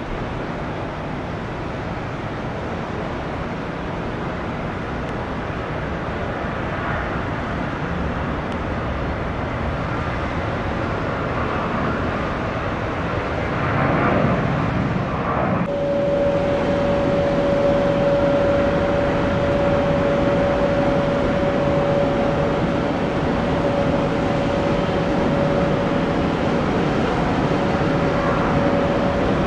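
Jet airliner engines running, a steady rush of noise that grows louder, with a steady whine setting in about halfway through.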